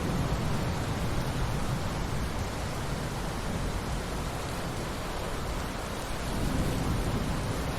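Steady rain with a thunder rumble dying away at the start, and a faint low rumble swelling again near the end.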